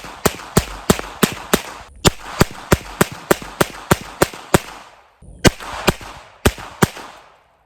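Diamondback Sidekick .22 Long Rifle revolver fired in rapid double action, a fast string of sharp gunshots about three a second. The string breaks off briefly twice.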